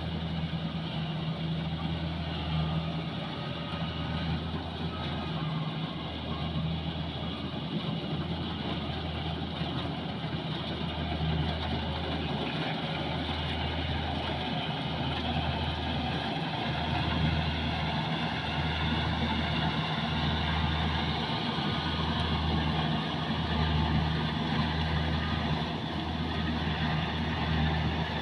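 Kubota DC-70 rice combine harvester's diesel engine running steadily and smoothly, with a low hum that swells and eases about once a second over a broad mechanical whirr.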